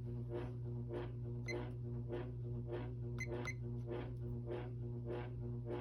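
Hunter Original ceiling fan's shaded-pole motor humming steadily while it runs, with a soft rhythmic vibration about twice a second from a splitting cane blade. A few faint clicks near the middle.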